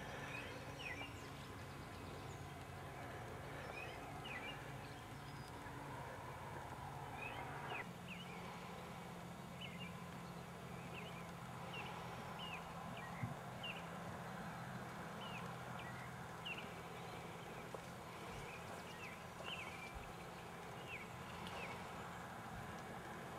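Faint outdoor ambience: a bird calling over and over in short chirps, about one a second, above a steady low hum that shifts in pitch about eight seconds in.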